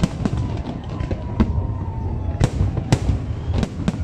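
Aerial fireworks bursting: a rapid, irregular string of sharp bangs and crackles over a steady low rumble, with the loudest bangs coming in the second half.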